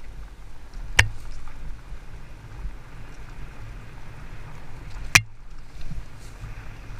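Haibike Sduro FullFat Six electric fat-tyre mountain bike ridden down a dirt singletrack: a steady low rumble and rattle from the tyres and frame over the rough ground. Two sharp knocks stand out, about a second in and about five seconds in.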